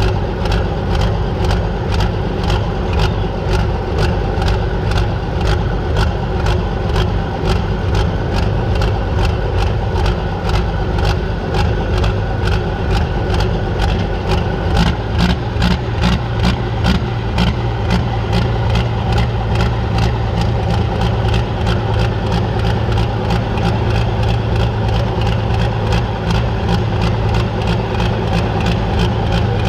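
Large pulling tractor's engine idling loud and steady, with an even pulse of about three beats a second.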